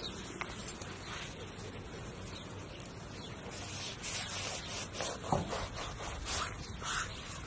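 Long knife sawing through soft burger buns on a wooden log chopping board: several short soft swishing strokes in the second half, with a small tap of the blade on the wood about five seconds in, over steady outdoor background noise.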